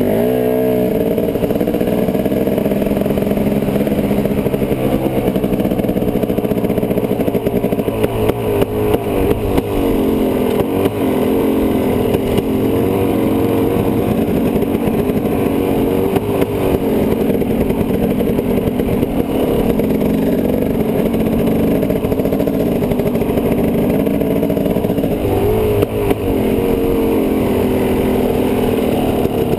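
Dirt bike engine running hard, its pitch rising and falling again and again as the throttle is opened and closed.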